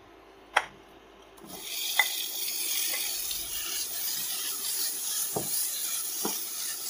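Cucumber strips hitting a hot nonstick pan and sizzling, starting about a second and a half in after a single click, while a wooden spatula stirs them with a few light knocks against the pan. They are being flash-fried for about ten seconds.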